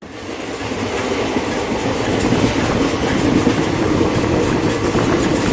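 Nilgiri Express passenger train running on its rails: a steady noise of wheels on track that rises over the first two seconds and then holds.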